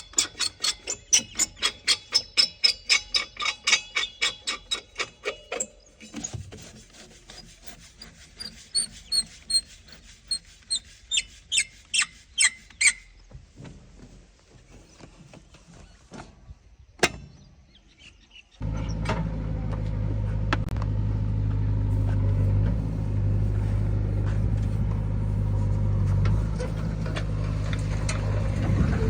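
Rapid clicking, about six ticks a second, for several seconds, then scattered clicks and short high chirps. About two-thirds of the way through, a steady engine hum cuts in suddenly and runs on at an even pitch.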